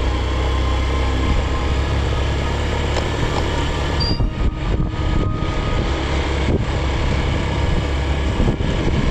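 Motorcycle running along at a steady speed: a continuous engine and riding noise with no clear changes in pace.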